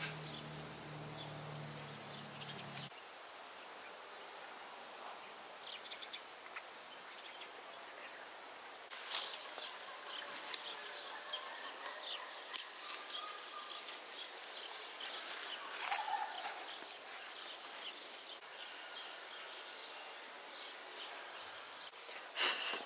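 Quiet garden ambience with faint bird chirps and scattered sharp clicks and taps. A low hum stops about three seconds in.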